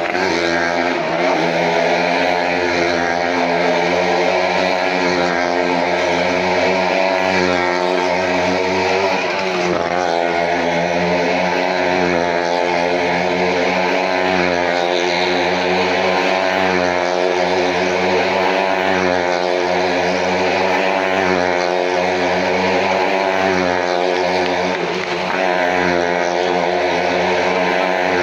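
A small car's engine running steadily, with brief changes in pitch about a second, nine seconds and twenty-five seconds in.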